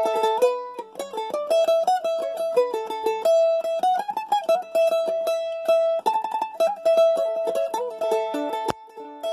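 A-style (teardrop, oval-soundhole) acoustic mandolin played solo: a picked melody with fast strokes, held notes sustained by rapid tremolo picking.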